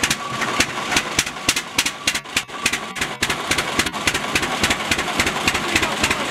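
Vintage tractor engine running steadily with a slow, regular exhaust beat, about five beats a second.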